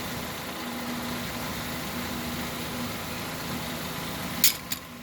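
A steady machine hum, like an idling motor, with two sharp clicks close together near the end.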